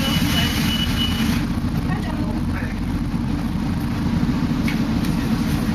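Shuttle bus engine idling at a stop, a steady low rumble. A thin, steady high-pitched tone stops about a second and a half in.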